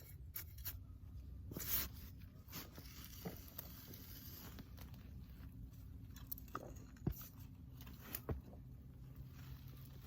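Digging into garden soil under a potato plant: scattered scrapes, rustles and crunches, with a few sharper clicks, the loudest about two seconds in and two more near the end.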